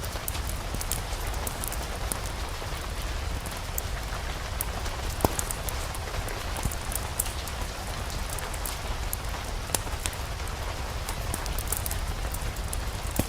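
Steady rain falling, with scattered sharp ticks of drops and a constant low rumble beneath.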